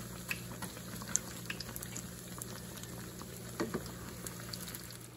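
Calzones deep-frying in hot canola oil: a steady bubbling sizzle dotted with many small pops and crackles.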